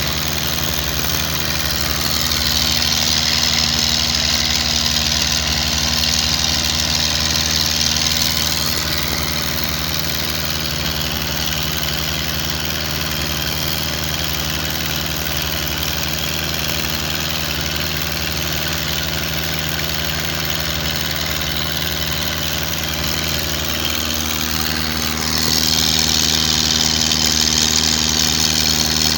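A wooden fishing boat's engine running steadily at an even pitch. A louder hiss rises over it from about two to nine seconds in and again near the end.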